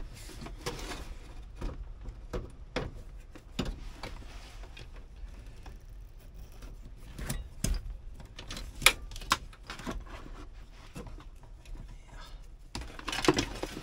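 Irregular small clicks, taps and rattles of a screwdriver and plastic wiring connectors being worked loose under a truck's dashboard, with a few sharper clicks around the middle.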